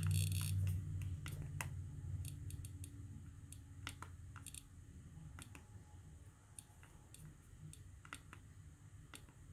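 iPod Nano 2nd Gen click wheel ticking in small irregular clicks as a thumb scrolls through its menus. A low hum fades out over the first second or so.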